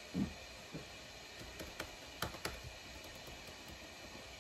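A few light clicks of keys being pressed on a faulty MacBook, over a faint steady hiss that the laptop keeps making.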